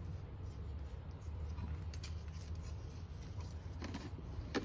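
Faint scratching and a few light taps of hands sprinkling cayenne pepper powder onto dirt, with a sharper tap near the end, over a low steady rumble.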